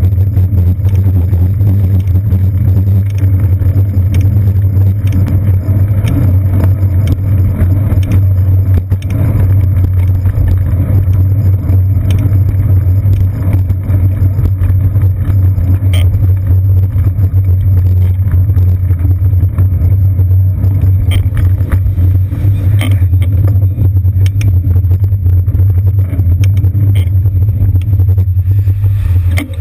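Steady, loud low rumble picked up by a seat-post-mounted GoPro Hero 2 on a moving bicycle in city traffic, with scattered small clicks and rattles.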